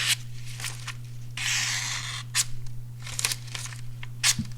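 A freshly sharpened pocket knife slicing through paper to test its edge: one long hissing cut about a second and a half in, with small rustles and clicks of the paper around it. A steady low hum runs underneath.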